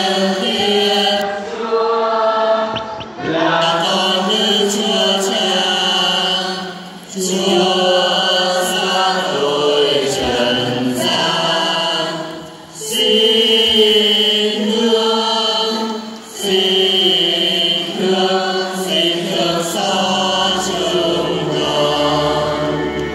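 Church choir singing a slow, chant-like hymn during Mass, in sung phrases broken by short pauses every few seconds.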